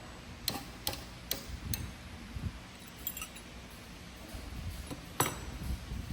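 A run of four sharp clicks, about two and a half a second, then a few light clinks and one louder click near the end.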